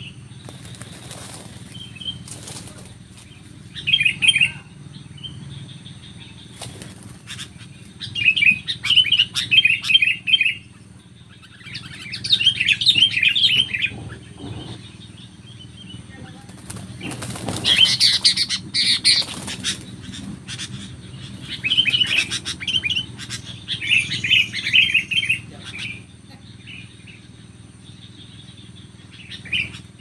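Sooty-headed bulbuls giving repeated bursts of rapid, harsh chattering calls, with sudden wing flutters, the loudest about halfway through. This is a decoy bulbul facing off against a wild bulbul, a territorial confrontation.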